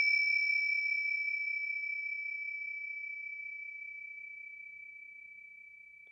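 A small bell ringing out after one strike: a single high, clear tone fading slowly away, its brighter overtones dying out first.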